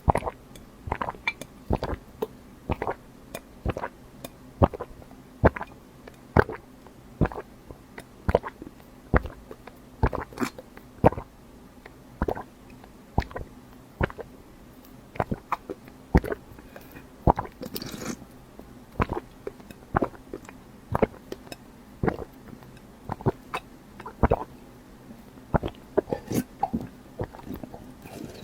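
Close-miked chewing of crisp food: a steady run of sharp crunches about two a second, with short pauses between bites.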